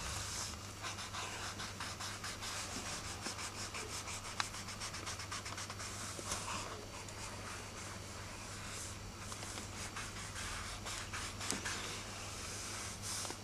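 A drawing pencil scratching on paper in many quick, repeated strokes, over a steady low hum.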